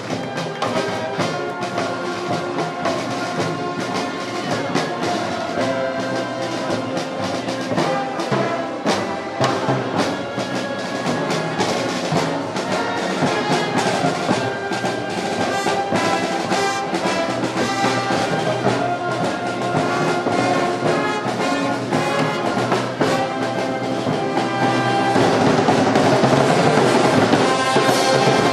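Brass band with drums playing a march, growing louder near the end.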